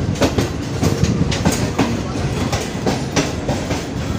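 Passenger train wheels clicking over rail joints as the express coach rolls slowly alongside a station platform, a steady rumble broken by sharp clacks about two or three a second, heard from the coach's open door or window.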